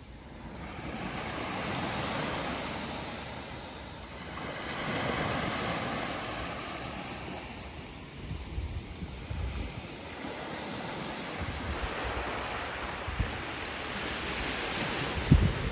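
Small sea waves washing up a sandy beach, twice swelling into a rush of surf a few seconds apart. In the second half, gusts of wind buffet the microphone with low rumbles, the strongest just before the end.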